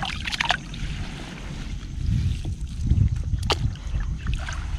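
Water sloshing around a person wading waist-deep as he gathers a sunken cast net by hand, with wind rumbling on the microphone. One sharp tick about three and a half seconds in.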